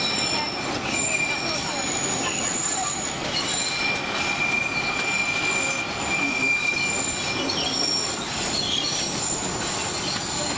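Rumble of the running narrow-gauge tourist train, with steel wheels squealing against the rails on a curve: thin high-pitched squeals that come and go.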